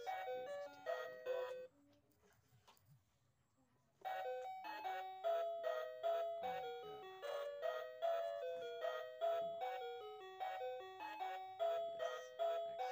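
Background music: a light, quick melody of struck notes that die away. It cuts out for about two seconds near the start, then comes back.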